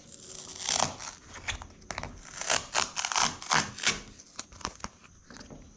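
Release-paper backing being peeled off adhesive-backed marine mat foam pads and crinkled: a quick, irregular run of crackling and ripping noises that thins out near the end.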